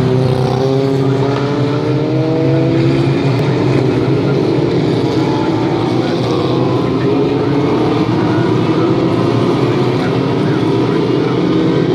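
A pack of historic Formula Ford racing cars, each with a 1600 cc Ford Kent four-cylinder engine, accelerating through a corner together: several engine notes overlapping and rising in pitch at once, loud and continuous as the field passes.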